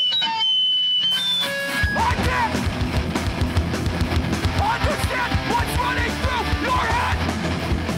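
Hardcore punk band playing live. A few held electric guitar tones ring out, then about two seconds in the drums, guitars and bass crash in together at full volume and keep going.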